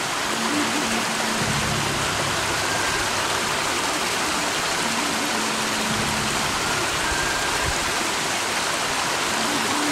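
River water rushing steadily where it pours over the head of a waterfall, an even, unbroken hiss.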